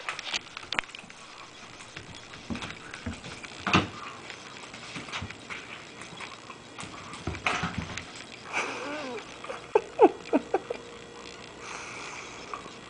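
A puppy playing with and chewing a small cat toy: scattered light knocks, taps and rustles, then a run of short, high squeaks about eight to eleven seconds in.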